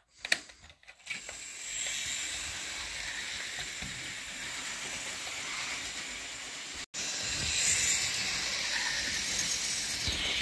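Hornby 'Smokey Joe' OO-gauge model tank engine running round the layout with its wagons: a steady whirr of the motor and wheels on the track, after a few clicks in the first second. The sound breaks off briefly about seven seconds in.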